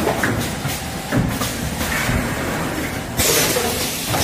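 Rotary ice-cup sealing machine running: steady mechanical clatter with repeated knocks, and a sudden rush of hiss about three seconds in.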